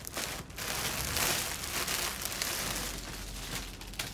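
Clear plastic packaging around a boxed suit rustling and crinkling as it is handled, easing off near the end.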